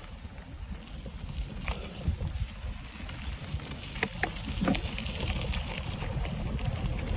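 Mountain bike rolling over a dirt trail: a steady rumble of tyres on the ground mixed with wind on the microphone, with a few sharp clicks and rattles about four seconds in.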